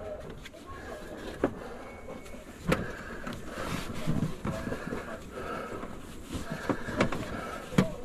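A few sharp knocks and clicks from gloved hands handling the cables and power cord behind a floor-standing air conditioner.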